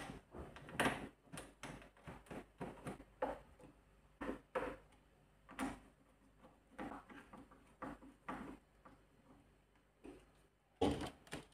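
Irregular small clicks and taps of metal fittings being handled and fastened while refitting a refrigerator door hinge, a few louder knocks among them.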